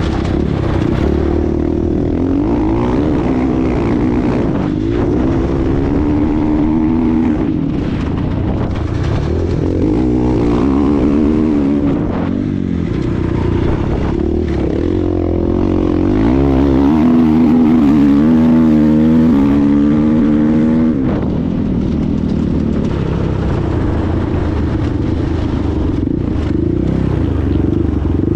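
KTM 500 EXC single-cylinder four-stroke dirt bike engine at race pace, revving up and dropping back again and again as the rider works through the gears. It is loudest in one long pull about two-thirds of the way through.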